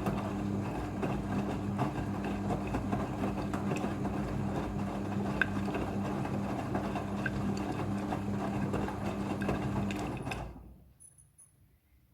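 Midea front-loading washing machine on its rinse cycle. The motor turns the drum with a steady hum while the wet laundry tumbles, then it stops suddenly about ten seconds in.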